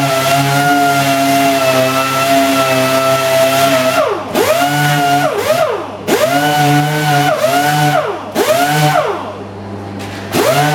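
Random orbital sander running at a steady high whine while sanding primer on a plastic bumper. After about four seconds its pitch repeatedly dips and climbs back up, several times over, as the tool slows and speeds up again.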